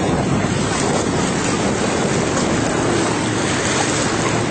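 Jet ski engines running as they speed past, over a steady rush of surf and wind buffeting the microphone.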